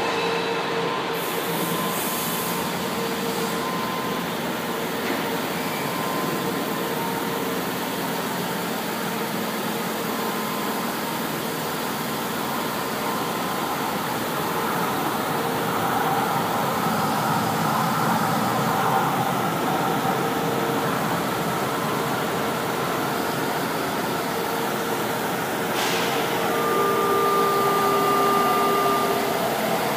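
São Paulo Metro train running into the station and slowing to a stop: steady rumble of wheels on rail with a few steady whine tones from the traction equipment. A short hiss comes about 26 seconds in.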